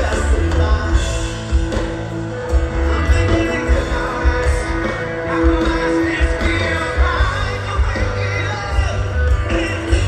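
Live rock band playing loudly with a singer over it, recorded from the audience, with a heavy, pulsing bass and drum low end.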